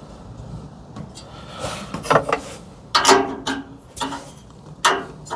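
Metal tool clinking and scraping against the small gas tube fittings of a water heater's pilot assembly as they are snugged up: a run of short, irregular clinks and rasps that start about a second and a half in and come faster and louder toward the end.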